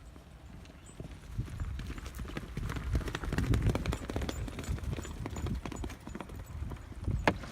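Horse hooves stepping in irregular clip-clops, picking up about a second in, with one sharper knock near the end. A low wind rumble on the microphone runs underneath.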